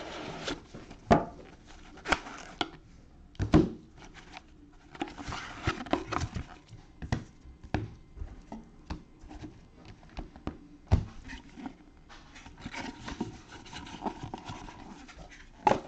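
Cardboard trading-card box handled with gloved hands as it is opened and its insert pulled out: a run of sharp taps and knocks, the loudest about a second in and again near the middle, with stretches of rubbing and scraping.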